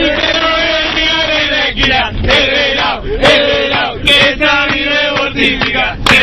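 A group of men singing and chanting a party song together, loud and overlapping, with a few sharp shouts or claps.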